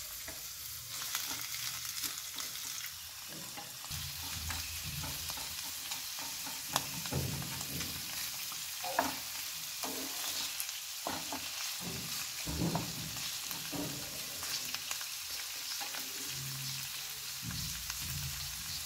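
Boiled peas and green capsicum sizzling in oil in a non-stick pan as their moisture cooks off, with a spatula scraping and knocking against the pan now and then as they are stirred.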